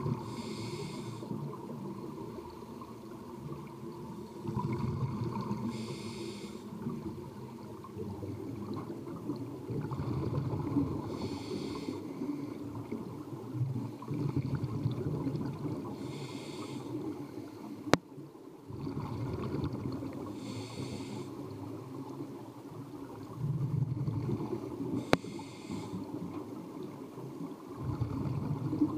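Scuba breathing heard underwater through a demand regulator: a hissing inhale about every five seconds, with the rumble and gurgle of exhaled bubbles in between. Two sharp clicks sound in the second half.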